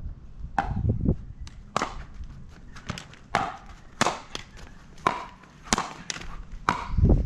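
Pickleball rally: a hard plastic pickleball popping off solid paddles and the court, a dozen or so sharp hollow pops at about two a second.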